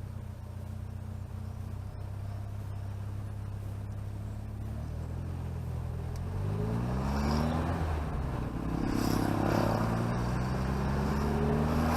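Chevrolet Chevette engine running steadily at low revs, then pulling away: its note rises about halfway through, dips briefly at a gear change, and rises again.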